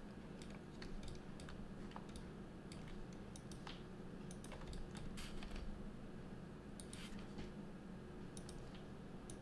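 Faint, irregular clicks of a computer keyboard and mouse as shortcuts are pressed and edits confirmed, over low steady background noise.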